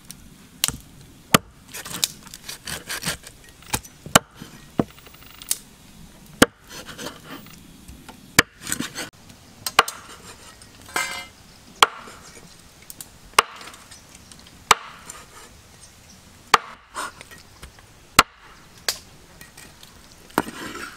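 Cleaver chopping a snake into pieces on a wooden chopping block: single sharp chops about every one and a half seconds, with softer rustling and handling between them.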